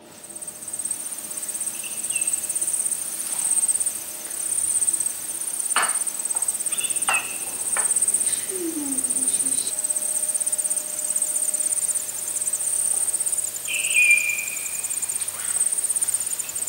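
Insects trilling steadily, a high, fast-pulsing chirr, with a few short bird chirps and a couple of light clinks of dishes being set on a table.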